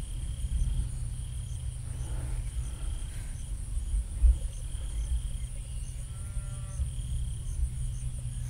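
Insects chirping steadily in evenly repeated high notes over a low rumble, with a faint, drawn-out animal-like call about six seconds in.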